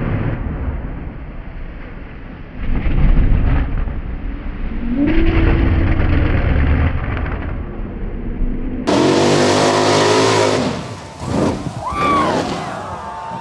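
Mud-racing Jeep's engine revving hard at full throttle through a dirt pit, its pitch climbing about five seconds in. About nine seconds in the sound cuts to a closer, clearer engine revving high with a rising pitch.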